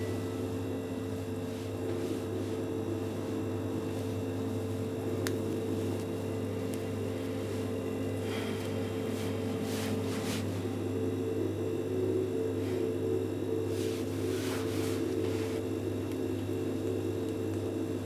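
A steady low hum of several layered pitches, with a few faint soft swishes about halfway through and again later.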